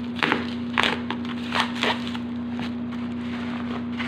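Packaging being handled by hand during an unboxing, with a few short crinkles and scrapes in the first two seconds, over a steady low hum.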